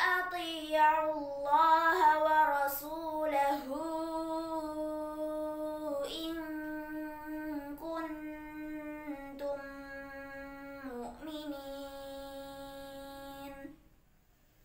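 A girl's solo voice reciting the Quran in melodic tartil chant, unaccompanied: a phrase with quick ornamented turns in the first few seconds, then a long held, slowly stepping line that breaks off about a second before the end.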